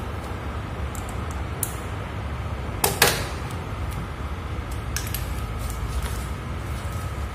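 Two sharp plastic clicks about three seconds in, with a few fainter ticks, as a small black wiring connector at the freezer's control panel is handled. A steady low hum runs underneath.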